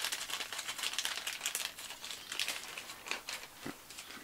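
Thin clear plastic parts bag crinkling as it is handled in the hands: a dense run of irregular crackles that thins out after about two and a half seconds.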